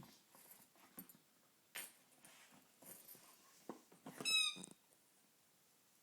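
Rubber chicken squeaky toy squawking once, loud and high-pitched, about four seconds in, as a dog squeezes it in its mouth. Soft knocks and scuffles come from the dog handling the toy.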